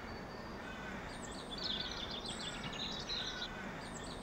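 Small birds chirping and twittering over a steady outdoor background hiss, the chirping growing busier about a second and a half in.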